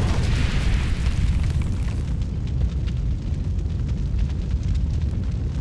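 Cinematic logo-reveal sound effect: a deep, steady rumble with fire-like crackling, and a hissing wash at the start that fades out about two seconds in.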